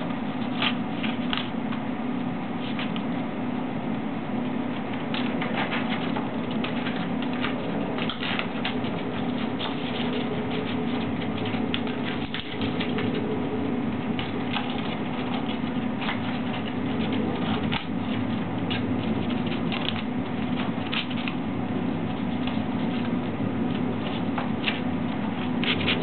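A Quaker parrot (monk parakeet) tearing and chewing a sheet of paper with its beak: irregular crackly rips and rustles, often in quick clusters, over a steady low hum.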